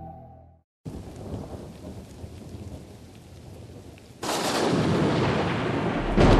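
Thunderstorm: a steady hiss of rain, then a loud thunderclap about four seconds in that rolls on into a deep rumble. Music cuts off just before the rain starts.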